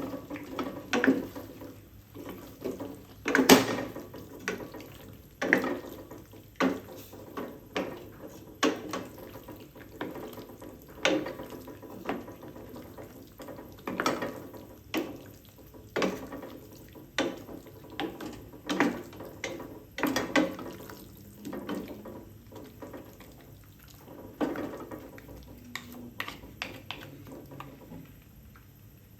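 Kitchen utensils and cookware knocking and clattering irregularly, about once a second, with water sounds underneath.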